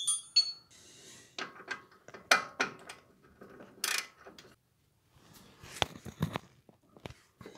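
Irregular metal clicks and knocks from a wrench being fitted to and worked on the 18 mm lower shock-absorber mounting bolt under a Ford F-150's front suspension. The bolt does not come loose.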